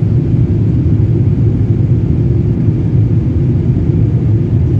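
Passenger aeroplane running with a steady low rumble of engine and airflow noise that does not change.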